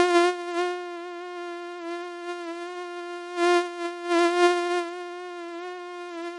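Mosquito buzzing: a steady, high whine that wavers slightly in pitch, swelling louder near the start and twice more around the middle, as if the insect passes close.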